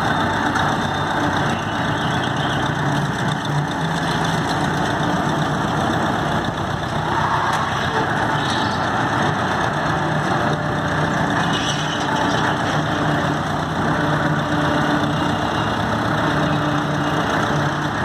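Engine of a vintage three-wheel road roller running steadily, a continuous even engine note.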